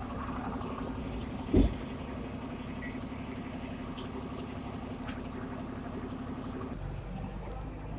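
A vehicle running at a standstill in traffic: a steady, fast-pulsing engine hum that cuts off about seven seconds in. A single loud thump comes about a second and a half in.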